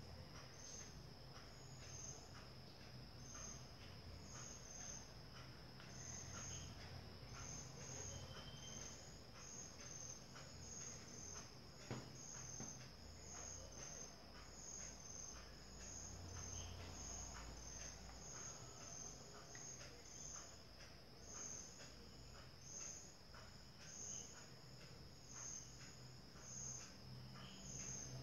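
Faint crickets chirping, short high chirps about twice a second over a steady high hum.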